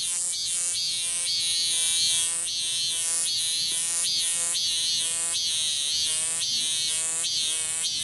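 Cicada singing: a loud, shrill song of repeated pulsing calls, about two a second, with no break.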